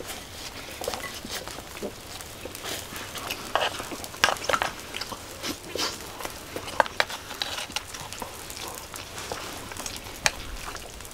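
Eating noises: chewing and lip-smacking, heard as a run of irregular short clicks and crackles.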